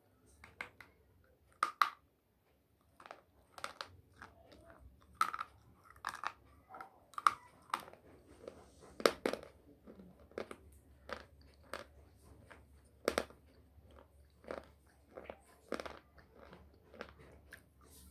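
A person biting and chewing a slate pencil: a run of sharp, irregular crunches, about one or two a second.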